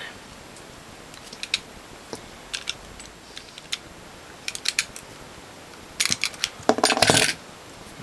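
Utility knife cutting through the rubber outer jacket of a power cord: scattered small clicks and scrapes, then louder handling noise for about a second near the end.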